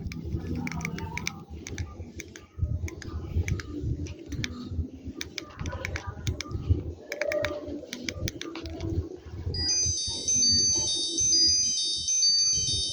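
L8Star BM10 mini phone's keypad buttons clicking over handling rumble, then, about three-quarters of the way in, a high-pitched electronic ringtone melody starts playing from its speaker.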